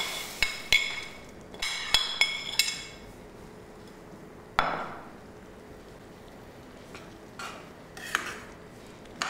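Spoon clinking against a plate as roasted vermicelli is scraped off it into a pan of boiling water: several sharp ringing clinks in the first three seconds. A single knock about four and a half seconds in, then soft stirring in the pan near the end.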